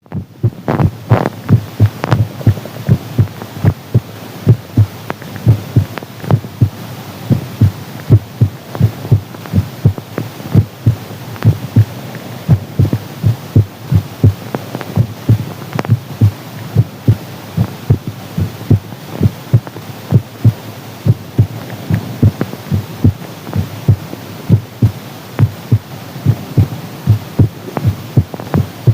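A human heartbeat: steady, regular lub-dub pairs of low thumps, with heavy breathing audible underneath.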